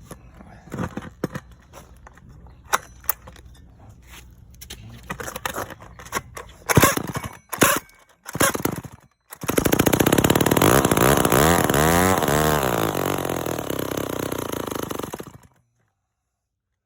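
Vintage Skilsaw 1631 chainsaw being pull-started: a few knocks and short bursts as it is cranked. Then it fires and runs for about six seconds, revving up and down, and cuts out suddenly. This is the old saw's first run after spark was restored.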